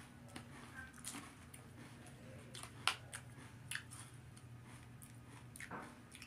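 A person chewing a mouthful of frosted corn flake cereal, with irregular crunches and clicks, the loudest about three seconds in. A faint steady low hum runs underneath.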